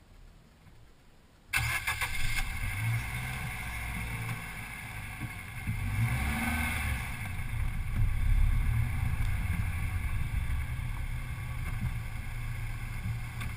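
Car driving noise heard from inside the vehicle: a steady low engine and road rumble with tyre hiss, cutting in abruptly about a second and a half in after near silence.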